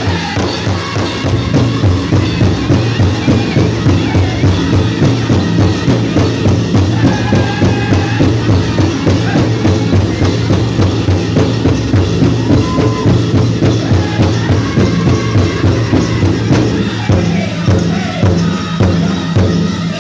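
Powwow big drum struck by a group of singers in a fast, steady beat under high-pitched group singing of a chicken dance song, with dancers' leg bells jingling along.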